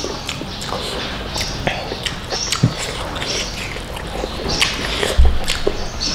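Close-miked wet chewing and lip-smacking over a mouthful of biryani, with short sticky clicks as rice and meat are squeezed together by hand. A low thump comes about five seconds in.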